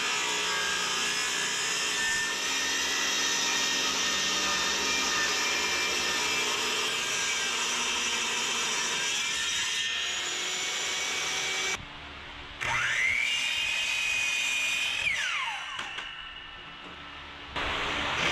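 Portable table saw running and ripping a 2x4 lengthwise, a steady loud whine of the blade cutting wood. After a break, a power tool's motor spins up to a steady high whine and winds down.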